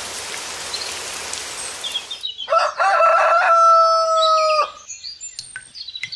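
Rooster crowing once, a single long call of about two seconds that drops in pitch at the end, following about two seconds of steady hiss.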